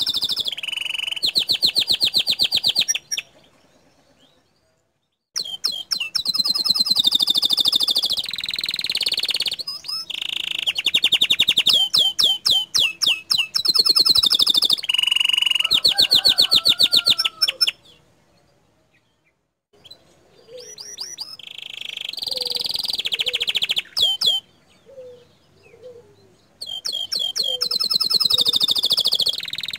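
Domestic canary singing loud phrases of fast, rapid-fire repeated notes and trills, the 'tembakan' bursts prized in song-master recordings. The song stops twice for a couple of seconds, and there is a softer patch of quieter notes near the end.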